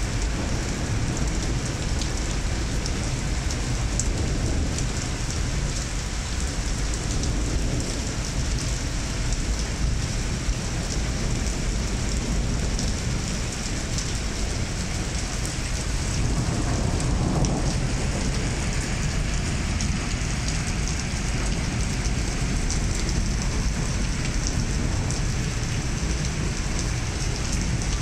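Steady rain falling on wet tiled paving and a road, a constant hiss with a low rumble underneath. The sound swells briefly a little past the middle.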